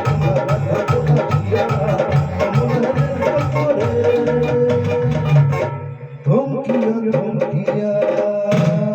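Instrumental music with a steady drum beat and melody lines. The music thins out for a moment about six seconds in, then comes back with a long held note.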